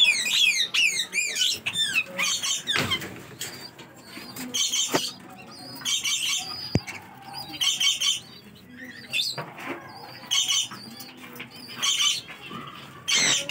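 Caged parrots (lovebirds and Alexandrine parakeets) calling. A quick run of shrill, falling chirps comes in the first couple of seconds, then short, harsh screeches repeat every second or two.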